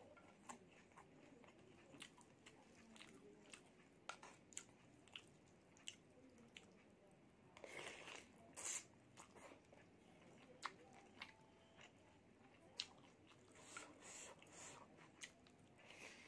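Quiet, close-miked eating sounds: chewing with scattered mouth clicks, and a slurp of instant noodles in spicy broth off a wooden spoon about eight seconds in.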